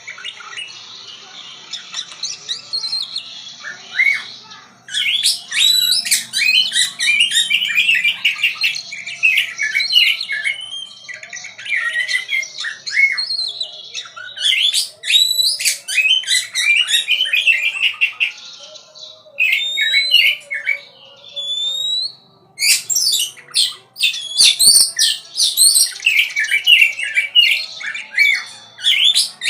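Songbird singing a fast, varied song of chirps, trills and harsh squawks, in loud runs broken by short pauses. It starts faint and grows loud about five seconds in.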